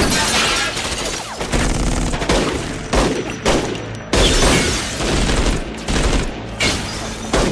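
Heavy gunfire from a movie shootout: rapid, overlapping shots from several guns. A dense sustained volley comes about four seconds in.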